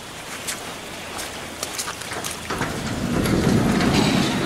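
Light rain easing off, a steady hiss with scattered drips ticking close by. About halfway through a low rumble swells up and is loudest near the end.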